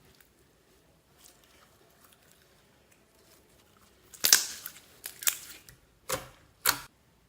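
Slime being played with by hand: after a quiet start, four short, sharp pops of air pressed out of the slime in the second half, the first the loudest.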